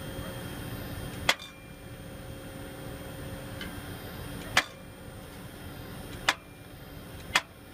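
Four sharp metallic strikes at uneven gaps as the hydraulically lifted 60-pound hammer of a dynamic cone penetrometer drops onto the steel rods, driving the cone into the subgrade, over a steady mechanical hum. Few blows are needed here because the test shows weakened, mushy subgrade soils under the concrete.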